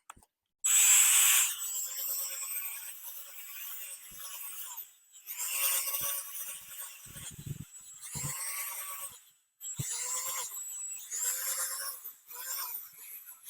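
Drill spinning a 1500-grit sanding pad against a wet plastic headlight lens, wet-sanding off the oxidation. It runs in about six bursts of one to four seconds, with a steady motor whine and a rough scrubbing hiss that start and stop together.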